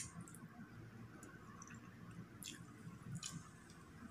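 Quiet chewing and mouth sounds of someone eating rice and stew, with a sharp spoon click as a spoonful goes into the mouth at the start and a couple of faint utensil clicks later.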